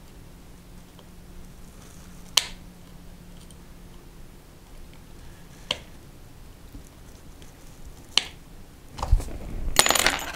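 Small metal pick clicking against the plastic servo frame in a model glider wing while fishing for a thin wire: three sharp single clicks about three seconds apart. Near the end comes a louder cluster of clicks and rustling as the tool is handled and put down.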